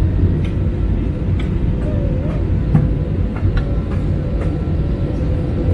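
Steady low roar of an Airbus A320-family jet airliner in flight, heard inside the cabin by the wing, with a thin steady hum over it and a few faint ticks.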